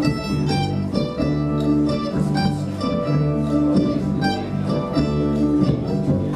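Acoustic guitar playing an instrumental passage of a folk song, picked notes with some held notes ringing over them, without singing.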